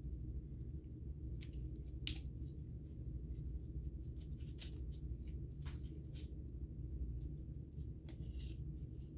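Small, sharp plastic clicks and scrapes as a little circuit board is prised and slid out of a white plastic tube part of an Apple keyboard. The loudest click comes about two seconds in, and a steady low hum runs under it all.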